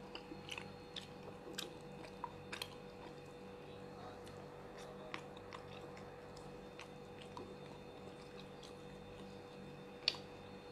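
Faint chewing while eating, with scattered small wet clicks and one sharper click about ten seconds in, over a faint steady hum.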